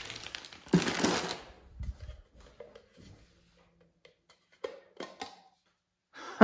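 Plastic packaging crinkling and rustling for about the first second and a half as a part is unwrapped, then a couple of soft knocks and a few faint handling clicks.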